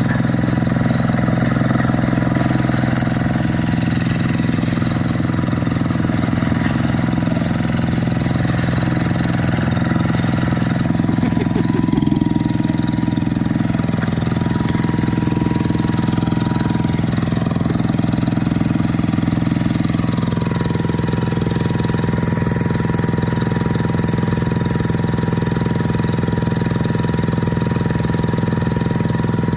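Quick G1000 two-wheel hand tractor's single-cylinder diesel engine running steadily, its note shifting about twelve seconds in and again around twenty seconds as the load changes.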